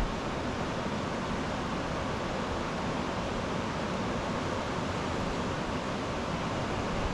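Steady rushing of a clear mountain river flowing over rocks, with a brief low thump right at the start.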